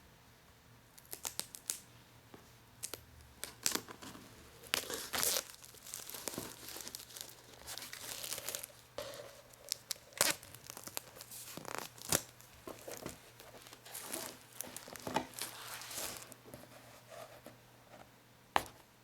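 A sticky sheet being peeled away and crinkled close up: irregular tearing strokes, some short and crackly, a few longer drawn-out pulls.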